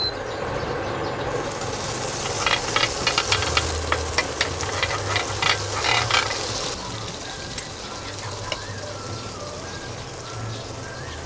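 Butter sizzling in a hot ridged grill pan, with a dense run of crackles and pops as a fork spreads it along the ridges. The sizzle quietens about two-thirds of the way in.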